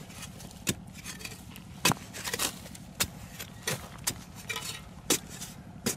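A metal digging bar with a flat blade striking and chopping into hard, dry cracked earth, about six sharp strikes roughly a second apart, with soil scraping and crumbling between strokes.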